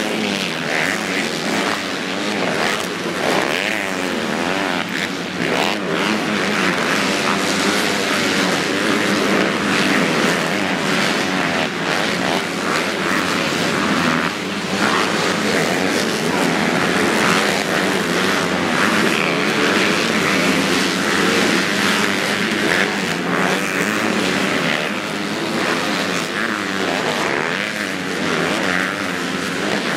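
Several motocross bikes racing, their engines revving hard in overlapping waves that rise and fall in pitch as the riders pass and take the jump.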